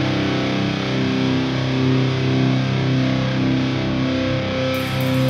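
Doom metal band playing live: heavily distorted electric guitars and bass holding long, sustained droning chords, with cymbal hits coming in near the end.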